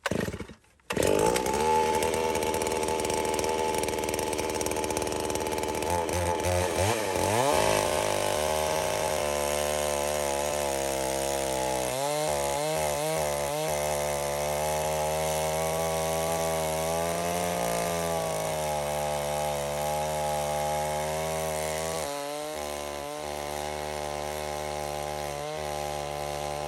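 Two-stroke chainsaw coming in suddenly about a second in and running at high throttle while bucking a big log in half. Its pitch dips and recovers again and again as the chain loads up in the cut, and it runs a little quieter near the end.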